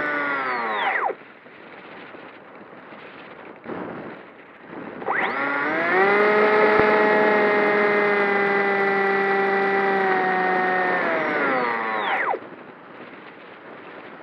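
Electric motor and pusher propeller of a Bixler RC foam plane, heard from the plane itself: the whine winds down and stops about a second in, leaving a quieter rush of air. About five seconds in the motor spins up again to a steady high whine, dips slightly and cuts off just after twelve seconds, back to the rush of air.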